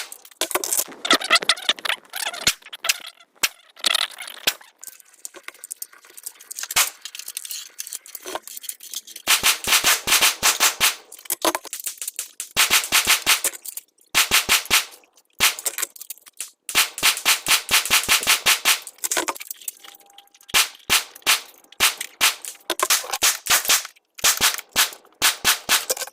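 Pistol fired in fast strings of shots, with sparser single shots between the strings.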